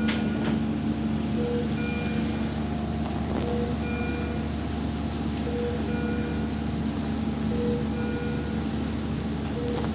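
Electronic alarm beeps from ICU bedside equipment, short tones of a couple of different pitches repeating about every two seconds over a steady hum of machines.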